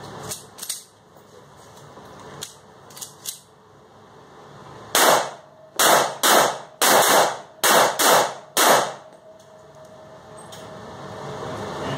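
A string of about seven pistol shots from a .40-calibre Smith & Wesson M&P, fired at an uneven pace over about four seconds, with a few faint clicks of gun handling before the first shot. The shots echo off the walls of an indoor range.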